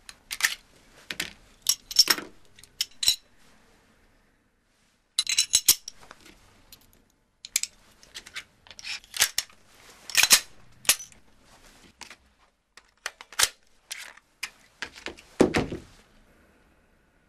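A pistol being handled and checked: an irregular string of sharp metallic clicks and clacks, with a heavier knock near the end.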